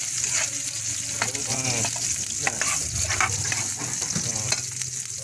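Garlic and onion sizzling in hot cooking oil in a metal pan, stirred with a metal spatula that scrapes and clicks against the pan several times.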